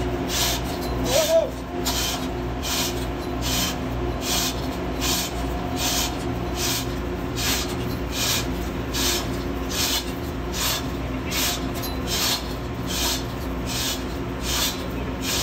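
Hand-operated chain blocks being hauled to lift a marine diesel's crosshead pin: an even, rhythmic rasp of chain running through the hoists, about three strokes every two seconds. A steady machinery hum runs underneath.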